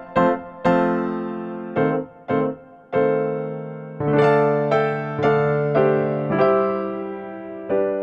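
Background piano music: a slow melody of struck notes, each ringing and fading away.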